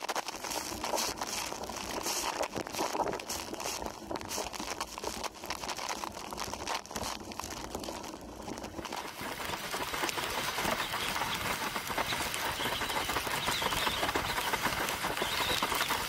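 Fanatic Falcon slalom windsurf board planing fast over chop: the hull slaps and rattles across the waves while strong wind buffets the camera microphone. About nine seconds in this gives way to a denser, steadier rush of wind and spray at around 60 km/h.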